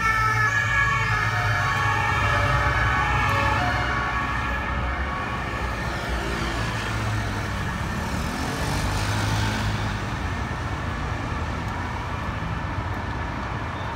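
Busy city street traffic with a steady low rumble of engines. An emergency vehicle's siren sounds at the start and fades away over the first few seconds as it moves off.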